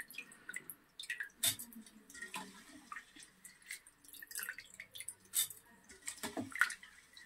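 Water dripping and splashing faintly as soaked rice is scooped by hand out of a steel bowl of water, in scattered small drips and splatters.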